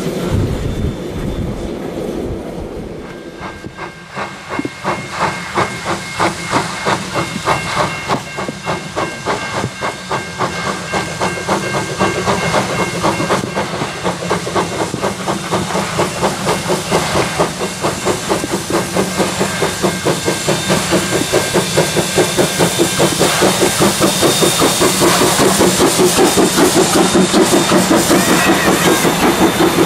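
NZR Ab-class 4-6-2 steam locomotive Ab608 working a passenger train, its exhaust chuffing in a steady rhythm that grows quicker and louder as it approaches and passes close by.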